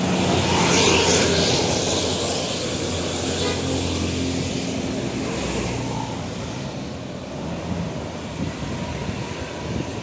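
Tour buses driving past close by: diesel engine running with tyre and road noise. The engine's low hum is strongest for the first four seconds, then drops away as a second bus goes by.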